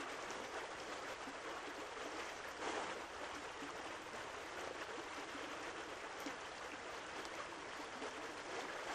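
Small stony creek running over rocks, a steady babble of flowing water.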